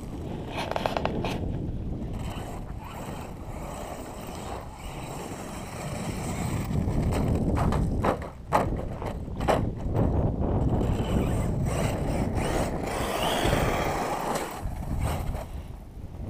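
Wind rumbling on the microphone, with a cluster of sharp knocks or crunches about halfway through.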